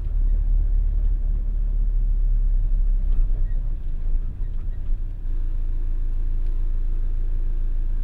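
Steady low rumble of a car being driven, heard from inside the cabin. It cuts in suddenly at the start.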